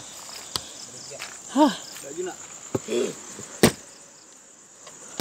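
Steady night chorus of crickets, broken by several sharp clicks and knocks, the loudest about three and a half seconds in. A brief pitched sound rises and falls about one and a half seconds in.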